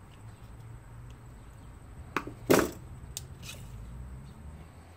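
Steel tape measure being handled: the blade is pulled out and laid along a metal block. There is a loud sharp clack about two and a half seconds in, just after a lighter click, then a couple of faint ticks.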